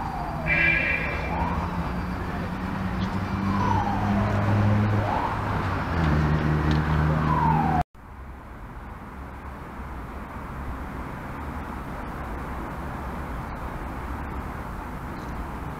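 An emergency-vehicle siren wailing in slow falling and rising sweeps over the low rumble of traffic. About eight seconds in it cuts off suddenly, leaving a steady low traffic hum.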